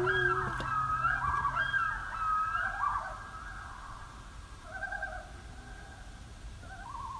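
Common loons calling back across the lake, with wavering, warbling calls that come in several bouts and grow fainter. A man's held yodel note ends about half a second in.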